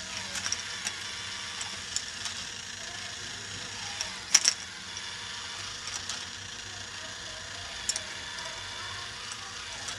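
K'nex ball lift running: its plastic gears and mechanism clatter steadily, with sharp clicks now and then, the loudest a quick pair about four seconds in.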